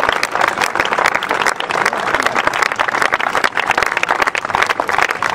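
Crowd of spectators applauding, many hands clapping steadily, in praise of a good golf shot.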